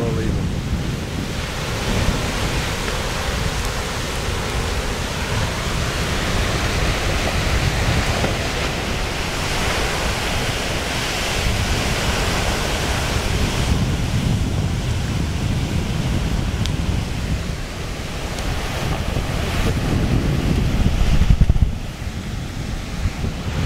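Continuous rush of surf and steam where molten lava pours into the sea at a Kīlauea lava ocean entry, with wind rumbling on the microphone. The hiss is brightest in the middle; the roar swells to its loudest just before the end and then drops off suddenly.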